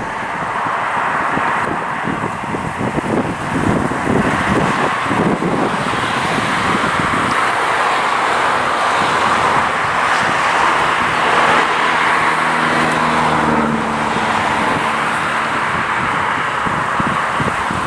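Road traffic: a steady wash of cars passing on a busy road, with one vehicle's engine hum standing out for a couple of seconds about two-thirds of the way through.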